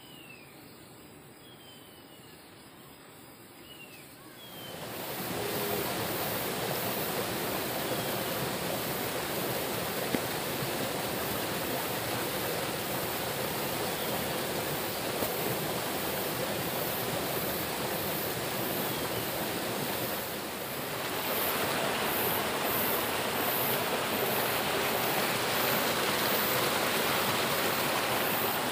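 A rocky mountain stream rushing and splashing over stones, a steady full rushing noise that swells in about four and a half seconds in. It is slightly louder after a brief dip about twenty seconds in. Before the water comes up there are only a few faint short chirps over quiet background.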